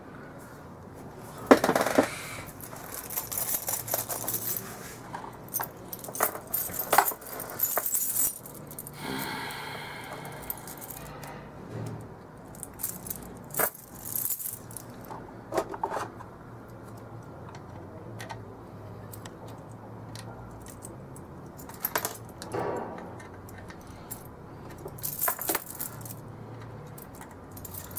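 Clicks, taps and scrapes of hard clear plastic packaging being handled and opened: a display case lifted off its base and small plastic parts knocking together, with a longer scraping stretch about nine seconds in. A faint low hum runs underneath.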